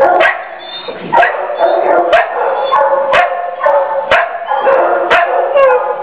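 Pit bull mix crying in distress at being kenneled: continuous high, wavering whining and howling cries, broken by sharp barks roughly once a second.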